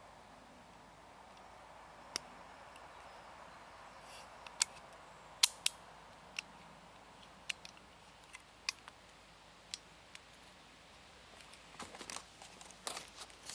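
Sharp mechanical clicks from handling a .22 blank revolver (6mm blanks), scattered singly and in pairs, then a quicker run of small clicks and rattles near the end.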